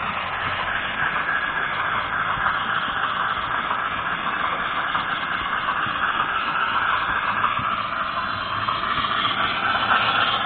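Model train running along the layout's track: a steady, unbroken rushing whir of its motor and wheels close to the onboard camera.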